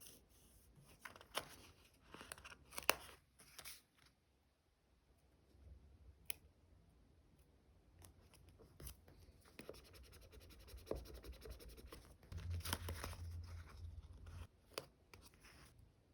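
Close-up paper and sticker handling for diary decorating: irregular short snips, scratches and peeling or tearing rustles, with a louder patch of handling near the end.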